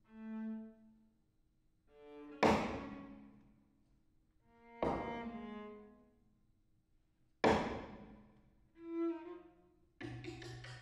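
Solo viola playing separate notes in contemporary concert music: soft swelling notes alternate with sudden, hard-attacked notes that ring away, about one every two and a half seconds. A few quicker notes follow near the end over a lower held tone.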